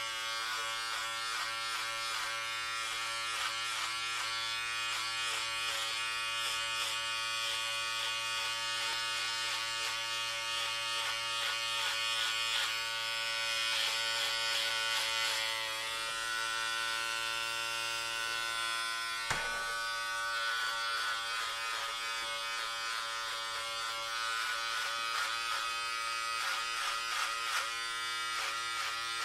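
Electric hair clippers running with a steady buzz, with a single sharp click about two-thirds of the way through.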